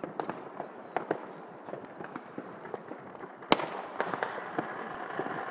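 Consumer fireworks and firecrackers going off non-stop: a rapid scatter of pops and cracks of varying loudness, with one much louder bang a little past halfway.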